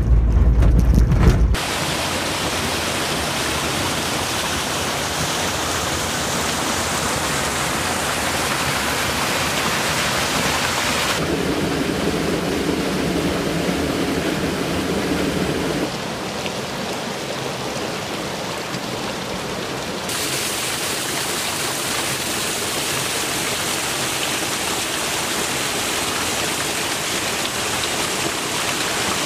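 A steady rush of falling water from a small waterfall, its sound shifting a few times along the way. At the very start, the low rumble of a Suzuki Jimny JA11C driving, which cuts off about a second and a half in.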